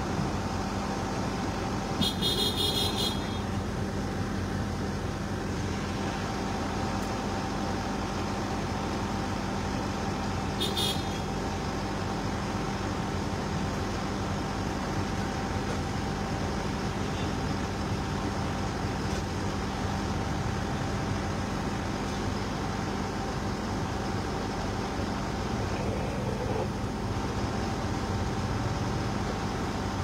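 Heavy machinery engine running steadily with a constant low hum. Two short high-pitched toots cut through, one about two seconds in and a briefer one around eleven seconds.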